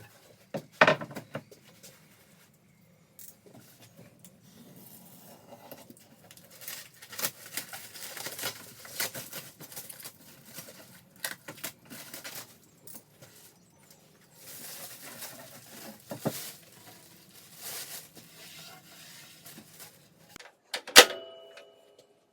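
Handling noises: scattered clicks and short rustling or rubbing sounds, with one sharp knock that rings briefly near the end.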